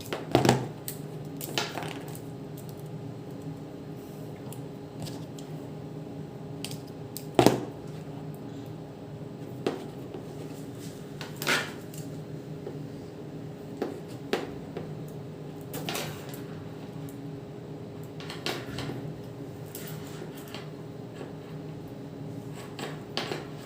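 Irregular sharp clicks, snips and taps from a crimping tool and a network cable being handled as the cable end is stripped and its eight wires are separated and straightened. The loudest click comes about seven and a half seconds in, and a steady low hum runs underneath.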